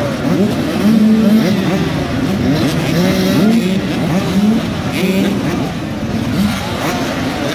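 Several dirt bike engines revving at once, their pitches rising and falling in short, overlapping revs.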